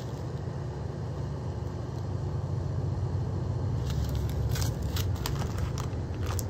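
A steady low rumble that grows a little louder partway through, with a few brief crinkles of a plastic zip bag of diamond-painting drills near the end.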